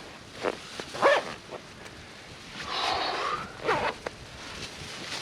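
A man breathing hard from exertion: short huffing breaths and grunts, with a longer breathy exhale about three seconds in.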